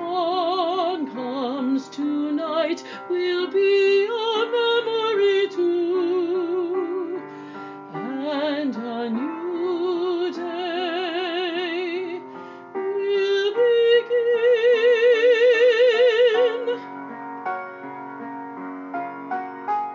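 A woman singing a slow ballad with wide vibrato over piano accompaniment, building to a long held note about two-thirds of the way through. The piano then carries on alone near the end.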